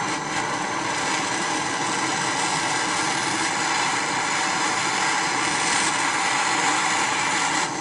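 Gas cartridge torch burning with a steady hiss, its flame heating a steel chainsaw starter return spring to soften it for bending.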